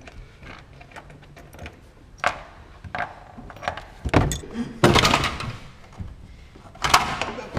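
Small clicks of a ratchet wrench on the rear-seat fixings of a BMW E36, then several hollow thunks and a scraping rustle as the rear seat back is pulled loose and lifted out, loudest about four to five seconds in and again near the end.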